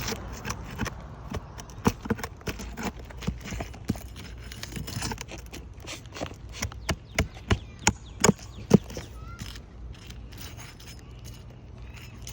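Irregular clicks, taps and scrapes of a hand tool working under old asphalt shingles to pull roofing nails, with the sharpest knocks coming about seven to nine seconds in. The brittle old shingles tear as the nails pull through them.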